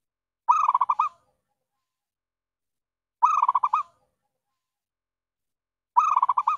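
Zebra dove (perkutut) calling three times, about 2.7 seconds apart. Each call is a quick string of about seven clear coos. It is the lure call used to draw wild zebra doves in.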